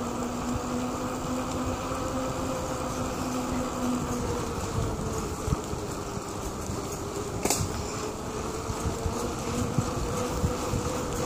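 Bicycle rolling along a paved trail: a steady buzzing hum that wavers slightly in pitch, over low road rumble and rattle, with one sharp click about seven and a half seconds in.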